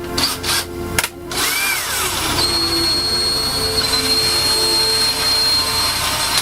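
Cordless screw gun with a magnetized bit driving a hex-head screw into a PC case to mount a hard drive. A few sharp clicks come first, then the gun runs steadily with a high whine for about four seconds.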